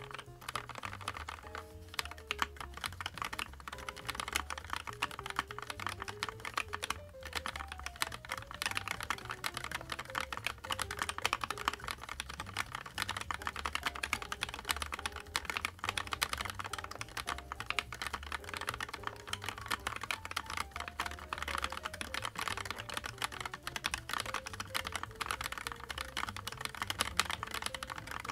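Continuous fast typing on the cool836qal, a 36-key O-ring-mounted custom mechanical keyboard, its keystrokes clicking in a dense steady stream over background music.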